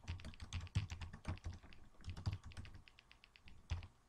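Computer keyboard typing: a quick, uneven run of keystrokes.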